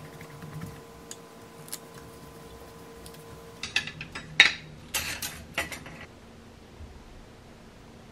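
Kitchen utensils being hung on a white metal wall rack's hooks: a red spatula and metal tongs clinking and clattering against the hooks in a quick flurry beginning about three and a half seconds in, after a few light clicks as the rack is pressed onto the tiles.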